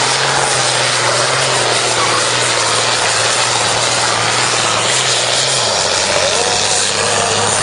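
Diesel pulling tractor's engine running hard at full load while dragging a weight sled, loud and steady. Its pitch drops a step about five and a half seconds in as the engine slows under the load.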